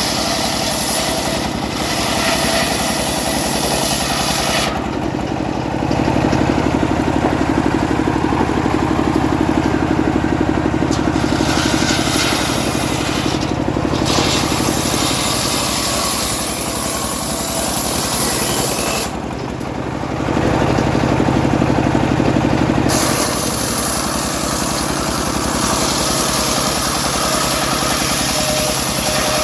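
Homemade engine-driven sawmill running steadily while its blade cuts through teak. The engine keeps a constant low drone, and the higher hissing of the cut drops away briefly several times.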